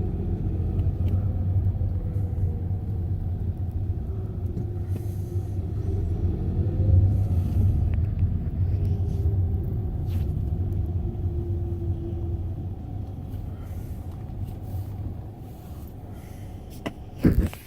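Car driving, heard from inside the cabin: a steady low engine and road rumble, with the engine's pitch gently rising and falling. A brief knock near the end, after which the rumble drops away.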